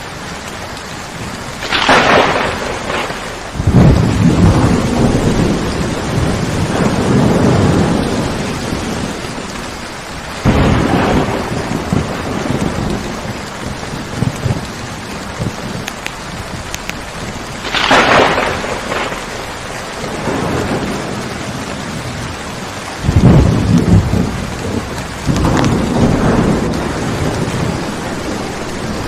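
Steady rain during a thunderstorm, with two sharp thunder cracks, one about two seconds in and one past the middle, each followed by long, loud, low rumbling of thunder.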